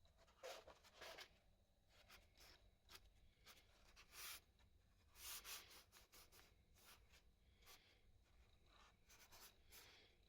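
Faint, irregular hand strokes of scraping and rubbing on a Honda Super Cub body part, bodywork being prepared or filled with putty.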